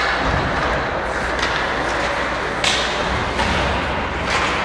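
Ice hockey play in a rink: a steady hiss of skates on the ice, broken by a few sharp clacks of sticks and puck.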